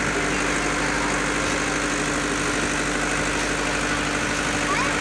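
A steady mechanical drone of a running motor, with a constant low hum. A few short high chirps sound near the end.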